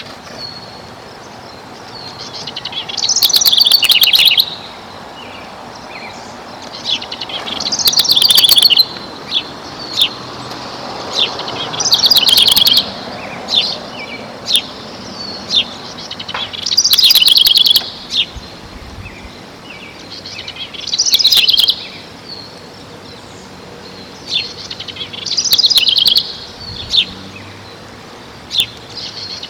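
A songbird singing: a high trilled phrase of about a second, repeated every four to five seconds, with single sharp chirps in between.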